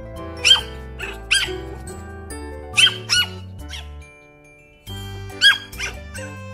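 Pomeranian puppy giving about six short, high-pitched yips, mostly in pairs, over background music.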